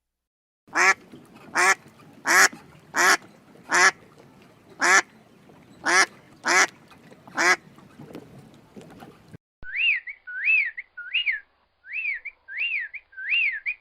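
A duck quacking, nine loud harsh quacks at uneven intervals, followed about two-thirds of the way in by a different call: a series of short whistled notes, each rising and falling in pitch, repeated about one and a half times a second.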